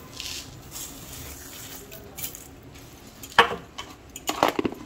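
Sugar poured from a steel bowl into a non-stick pan of coconut paste, with a soft hiss. Then a wooden spatula knocks and scrapes against the pan in a few sharp clicks, first about three and a half seconds in and again in a cluster near the end.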